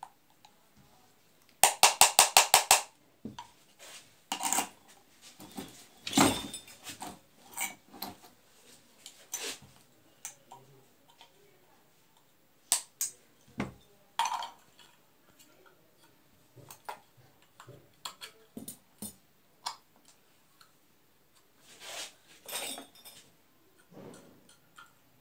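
Clicks, taps and clinks of small metal and plastic parts as an LED bulb is assembled by hand with pliers. Near the start there is a quick run of about eight sharp clicks, followed by scattered single clicks and knocks.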